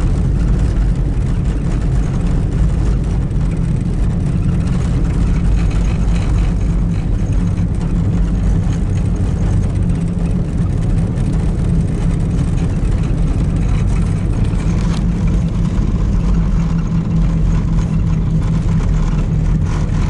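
Steady engine and tyre rumble inside the cabin of a four-wheel-drive vehicle driving on a snow-covered road.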